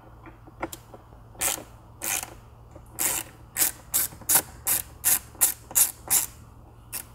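Hand ratchet with a T20 Torx bit clicking through about a dozen short strokes as it backs out a dash trim screw, the strokes coming faster, about three a second, from about three seconds in.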